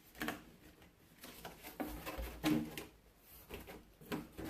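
Cardboard box being opened by hand: a series of short rustles, scrapes and knocks of the flaps and packaging.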